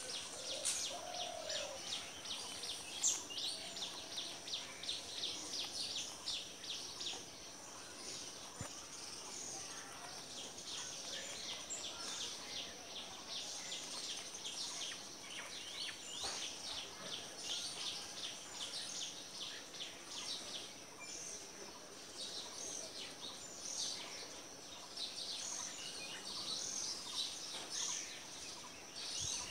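Small birds chirping in quick runs of short, high notes over steady outdoor background noise.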